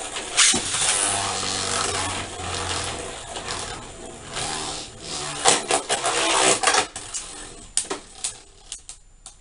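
Beyblade Burst spinning tops whirring and grinding across a plastic stadium, with repeated sharp clashes. The whir fades near the end, leaving separate sharp clicks.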